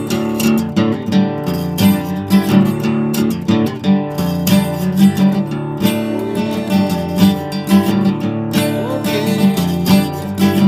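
Acoustic guitar strummed in a steady, even rhythm, an instrumental passage of a song.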